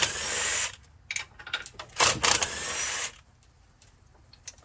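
Cordless impact wrench hammering in two short bursts, the first right at the start and a longer one about two seconds in, loosening bolts on a Chevy small-block V8 under teardown.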